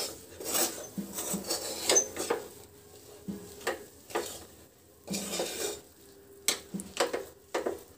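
A metal utensil scraping and stirring a thick, dough-like ginger and sugar mixture around a kadhai, in irregular strokes with short pauses; the mixture has cooked down thick enough to set.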